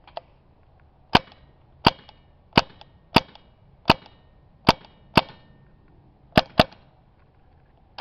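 Tippmann 98 Custom paintball marker firing semi-automatic shots: nine sharp cracks, mostly evenly spaced about two every three seconds' worth of a second apart, with a quick pair near the end, each followed by a brief metallic ring.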